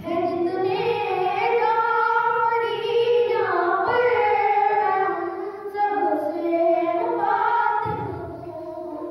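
A boy singing a manqabat, a devotional poem in praise of Imam Ja'far al-Sadiq, solo in long held, wavering notes, with short breaks between phrases.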